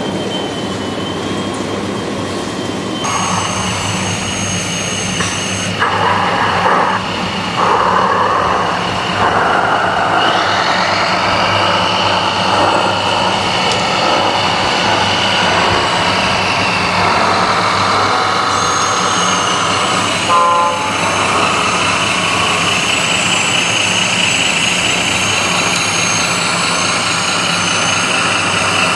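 Radio-controlled model construction trucks and machines working: high electric motor and gearbox whines that start, stop and change pitch several times, one rising about a third of the way in, over a steady low engine-like hum. A brief rattle comes about two-thirds of the way through.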